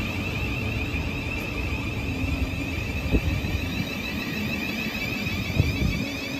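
Thameslink Class 700 electric multiple unit pulling out along the platform: a steady high electric whine over the rumble of wheels on rail, with two short knocks about three and five and a half seconds in.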